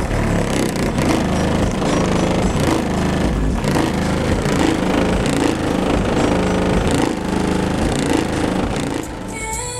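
Very loud, bass-heavy music from a car audio system with Rockford Fosgate subwoofers, heard from outside the car at the trunk. The deep bass dominates and comes through with a fast, rough pulsing.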